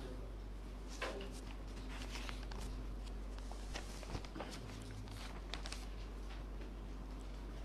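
Paper rustling and pages being turned as a book and a thin booklet are handled close to the microphone: scattered soft rustles and light taps over a steady low hum.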